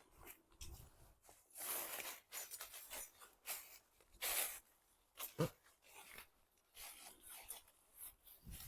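Footsteps crunching and rustling through woodland leaf litter and undergrowth, in uneven steps, with one sharper crack about five and a half seconds in.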